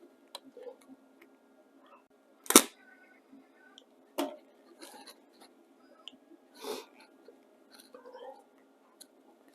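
A few sharp clicks and knocks with fainter ticks between them; the loudest knock comes about two and a half seconds in.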